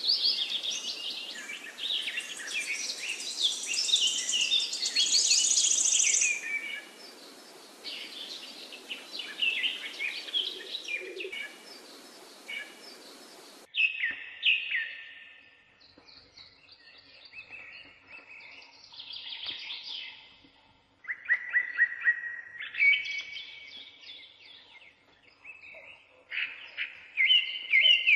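Birds chirping and trilling: a dense chorus of overlapping song in the first six seconds, then separate calls and trills. A steady hiss under it stops abruptly about fourteen seconds in.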